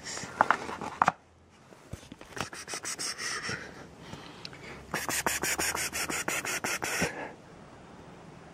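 Rapid raspy scratching in three bursts, each a quick run of strokes at about seven a second, with two sharper knocks about a second in.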